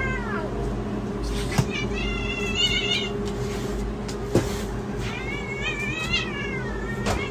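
A cat meowing: a short falling meow at the start, then two long, drawn-out wavering meows, the second rising and then falling. A steady low hum runs underneath, with a couple of short knocks.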